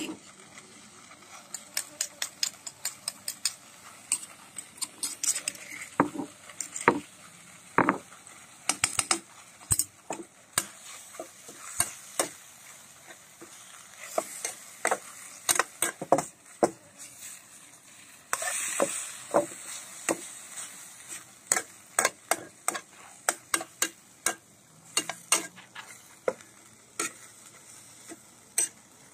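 A metal spatula scraping and clacking against a steel wok in quick, irregular strokes as minced beef is stir-fried dry, over a steady sizzle. The sizzling hiss swells louder for about a second, about two-thirds of the way through.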